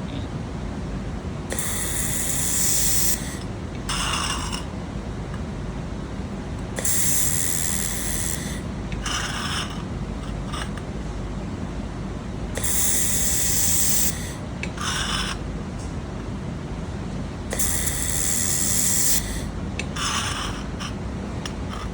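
Fiber laser welder on thin stainless steel sheet, hissing in four long bursts of about a second and a half, each followed a couple of seconds later by a shorter, lower hiss, over a steady machine hum.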